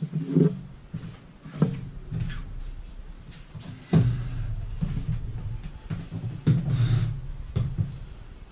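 A string of knocks and thumps from someone moving about on a wooden floor. A wooden dining chair is knocked, scraped out and sat on in the second half; the loudest thump comes about four seconds in.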